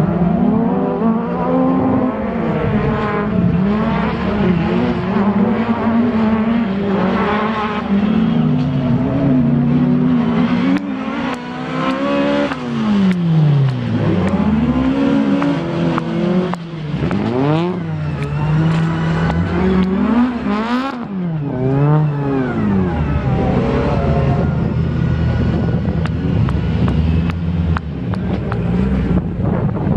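Race car engines revving hard through the gears as cars lap the circuit, their pitch climbing and dropping over and over. Around the middle a car passes close, its engine note sweeping down steeply as it goes by.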